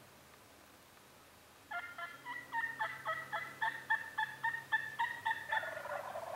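Turkey yelping: an even series of short pitched notes, about four a second, starting about two seconds in and running some four seconds.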